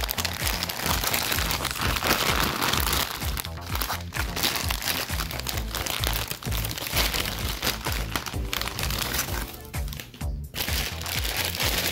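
Packaging crinkling and rustling as a boxed model locomotive is unwrapped, over background music with a steady bass beat.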